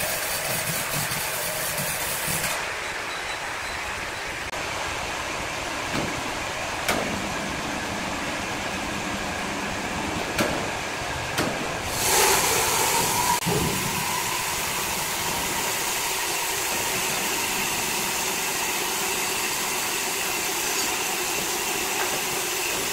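Large sawmill band saw running steadily, a mechanical hum with hiss. There are a few sharp knocks, and a louder burst of noise about twelve seconds in.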